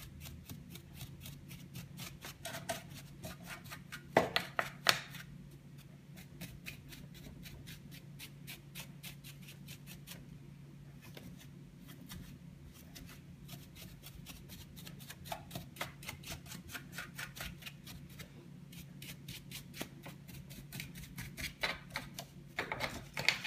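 A small paintbrush scrubbing lint and dust out of the open metal frame and mechanism of a Brother 3034D overlocker, a quick scratchy rhythm of about five strokes a second. A few louder knocks about four seconds in and again near the end, under a faint steady low hum.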